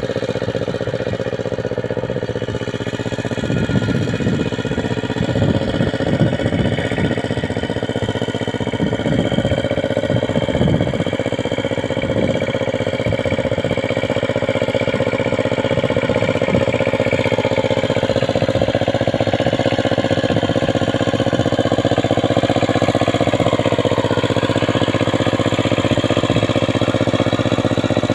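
Walk-behind power tiller's single-cylinder diesel engine running steadily while its steel cage wheels work through flooded paddy mud. A stretch of irregular knocking and clatter comes in the first half.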